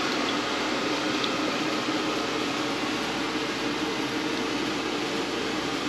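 Steady whir of a fan running in a small room, with no clear tool or parts noise over it.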